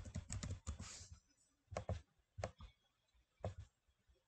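Computer keyboard being typed on in a quick run of keystrokes, followed by a few single clicks spaced out over the next two seconds.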